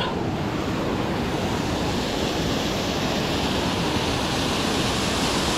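Steady rush of water from small creek waterfalls pouring over rocks into a pool.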